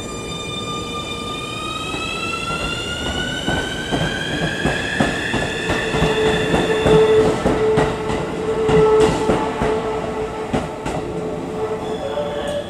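Keikyu electric train accelerating: its motor whine rises steadily in pitch for several seconds, over repeated clacks of the wheels on the rail joints. A steady high tone joins about halfway through.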